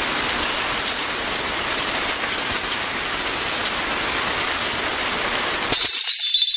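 Steady rain hiss. Near the end it gives way suddenly to a bright crash with high ringing tones that die away.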